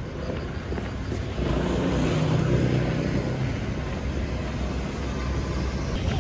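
City street traffic noise: a steady rumble of passing vehicles, with one vehicle's engine louder for a couple of seconds around the middle.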